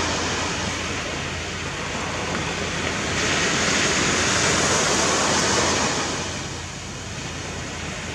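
Surf washing onto a beach: a steady rush of waves that swells about three seconds in and eases off near the end.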